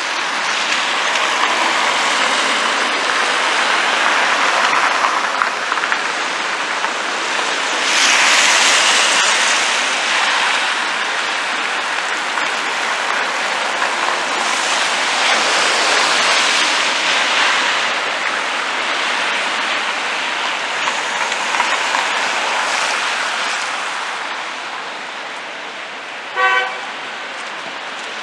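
Cars passing on a wet road, their tyres hissing through water in several long swells, with one short car-horn beep near the end.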